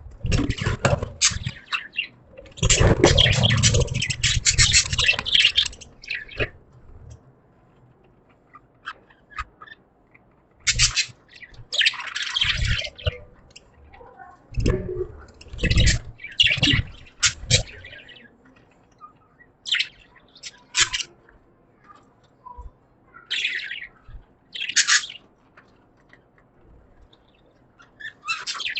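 Budgerigars chirping and chattering in bursts, with quiet gaps between them. The longest and loudest stretch comes a few seconds in.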